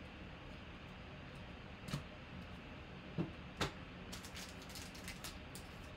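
Faint handling of trading cards: three sharp plastic clicks about two and three and a half seconds in as a card goes into a rigid plastic top loader, then a run of light crinkles and ticks from a foil card pack being handled in the fingers.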